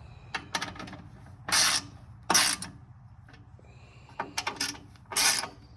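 Hand work on a fitting: clusters of sharp clicks and three short, loud rasping strokes, like a ratchet or a tie being pulled tight.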